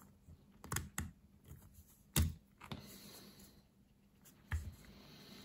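A few scattered light clicks and knocks of 3D-printed plastic lens rings being handled and pulled apart, with one louder knock about two seconds in.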